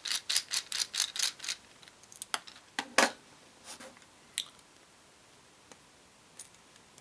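A quick even run of small clicks, about four or five a second, as a screwdriver backs out the handle screw of a baitcasting fishing reel. This is followed by a few separate sharper clicks and taps of small metal parts being handled, the loudest about three seconds in.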